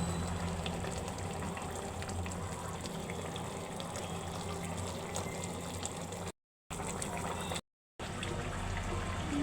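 Water running steadily with scattered small clicks and splashes, cut off abruptly twice for a moment near the middle.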